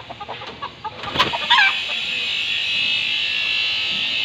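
Bantam chickens clucking in short notes, with a sharp knock about a second in followed by a brief wavering squawk, over a steady high-pitched hiss.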